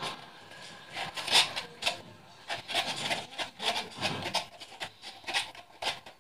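A plastic stirring utensil scraping and stirring inside a foam cup of glue and shaving gel being mixed into slime: a run of irregular, scratchy strokes.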